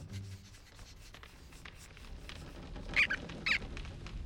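Two short, high squeaks from a cartoon rodent, about half a second apart, over a faint low background rumble.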